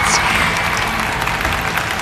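Studio audience applauding.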